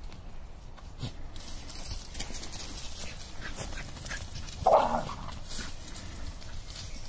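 A dog barks once, a single short bark about two-thirds of the way in. Dry leaf litter rustles and crunches under the dogs' paws around it.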